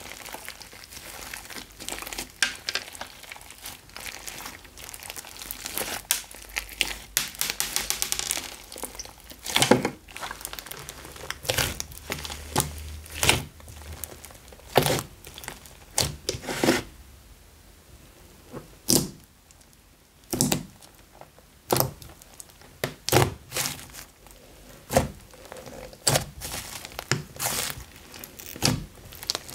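Hands squishing and kneading a thick mass of slime, giving irregular sharp pops and crackles, with a quick run of crackling about a third of the way in and a quieter stretch about two-thirds through.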